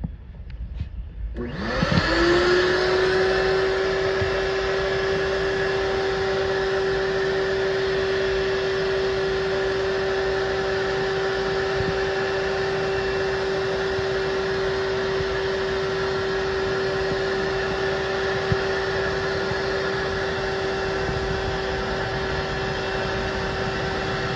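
Ridgid wet/dry shop vacuum switched on about a second and a half in, its motor spinning up in a rising whine and then running steadily with a constant rush of air.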